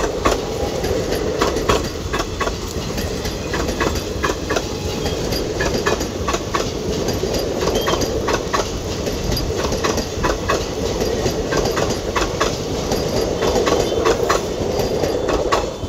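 Indian Railways express passenger coaches rolling past close by: a steady rumble with the clatter and clicking of wheels over the track. The sound drops off sharply near the end as the last coach, the luggage van, goes by.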